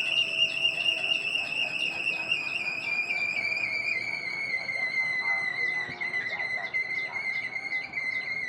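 Kolecer, a Sundanese wooden wind propeller, whistling as it spins in strong wind. One continuous high tone with a fast flutter, its pitch sinking slowly as the rotor slows a little.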